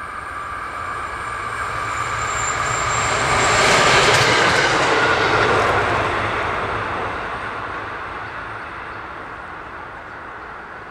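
A yellow rail track-tamping machine travelling past under its own diesel power, with its engine and wheels on the rails carrying a steady whine. The sound grows, peaks about four seconds in as the machine goes by, then fades as it moves away.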